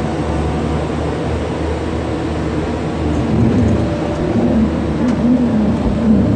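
Aerial cable car running: a steady mechanical hum and rumble without letup.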